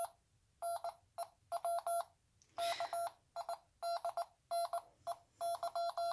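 Wand Company sonic screwdriver toy playing Morse code through its small speaker: one steady tone keyed in short and long beeps, in groups with gaps between. A brief hiss comes about midway.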